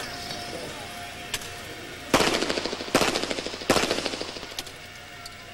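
Three pistol shots from a competition pistol, a bit under a second apart, each loud crack dying away in a short echo. A few fainter sharp cracks come before and after.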